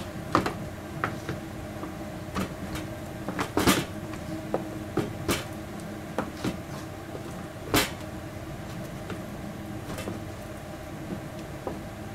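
Scattered knocks and taps from dishes and hands on a kitchen counter as a chicken breast is dredged in flour, the loudest two a little under four seconds and just under eight seconds in. A steady low hum runs underneath.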